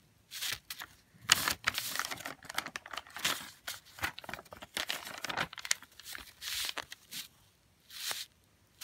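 Paper instruction sheet rustling and crinkling as it is handled and folded, in irregular rustles with a brief lull shortly before the end.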